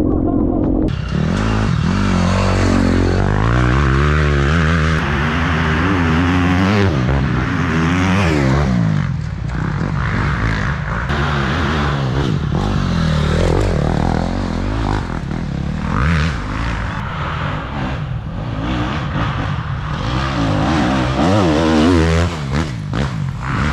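Dirt bike engines revving hard on an enduro trail, pitch climbing and dropping over and over as the riders work the throttle and shift gears, with bikes passing close by.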